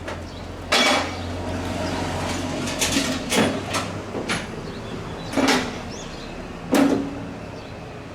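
A series of heavy knocks and clanks, about six at irregular intervals, each with a brief low ring; the loudest come about a second in and near the seventh second. A low hum runs underneath and stops about three seconds in.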